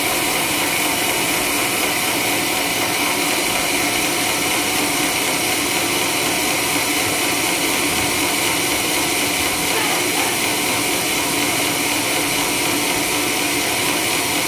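Sawmill running steadily, sawing a coconut palm trunk into lumber: an even, unbroken machine noise.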